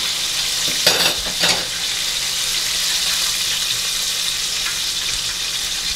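Flour-coated buttermilk chicken deep-frying in a pot of hot oil, a steady sizzle, with two brief louder sounds about a second in as pieces are moved in the pot with tongs.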